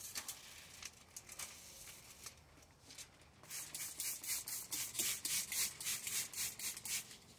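Faint crackling rustle of a window tint film's liner being peeled back, then a hand trigger spray bottle squirting water in quick strokes, about three or four a second, from about three and a half seconds in, wetting the freshly peeled tint film.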